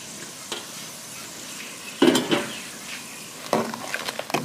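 A pot of boiling water with sliced bolete mushrooms in it, bubbling steadily while the mushrooms are stirred; louder clattering stirs come about two seconds in and again near the end. The mushrooms are being blanched briefly.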